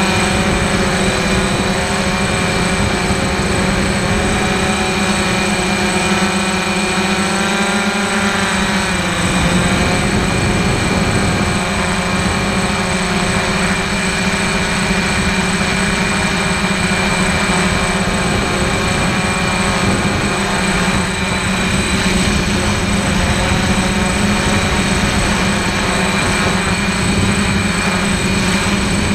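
DJI Flamewheel F550 hexacopter's motors and propellers buzzing steadily, heard from a camera mounted on the aircraft. The pitch shifts and drops about nine seconds in as the throttle changes.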